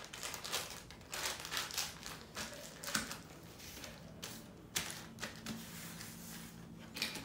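Irregular light taps and clicks with some crinkling of a plastic wrapper as a small plastic Happy Meal toy is unwrapped and handled on a table.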